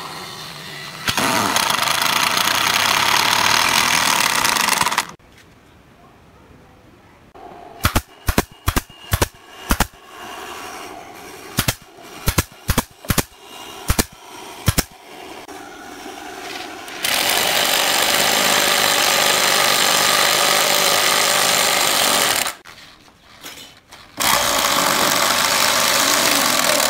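Corded power drill-driver driving screws into pallet wood, running in three long bursts of several seconds each. Between the first and second bursts comes a string of a dozen or so sharp knocks.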